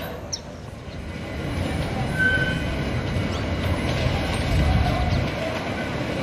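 A pair of Stadler electric rack locomotives running light along yard track: a low rumble of wheels and motors that grows louder from about a second and a half in, with a short high squeal about two seconds in.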